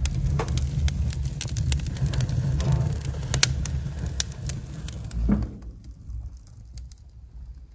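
Kindling and split wood catching fire in a wood stove, crackling with many sharp pops over a low rumble. It quietens after about five and a half seconds.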